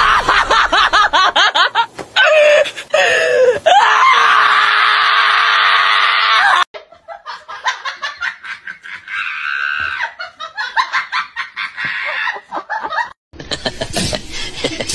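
A dog held down on a table screaming in loud, high-pitched wails, ending with one long held scream that cuts off abruptly about six and a half seconds in. Quieter, broken sounds follow.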